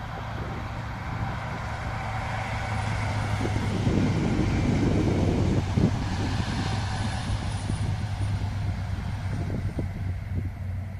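InterCity 125 High Speed Train with Class 43 diesel power cars passing. A steady diesel drone and the rumble of the train build to a peak about halfway through and then fade. A faint high whistle rides over it near the middle.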